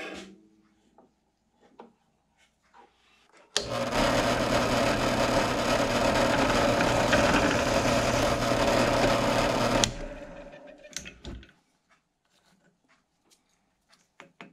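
Drill press running and boring a hole through a short piece of wooden dowel clamped in a vise. It starts suddenly about three and a half seconds in, runs steadily for about six seconds, then winds down over a second or so. A few light handling clicks come before and after.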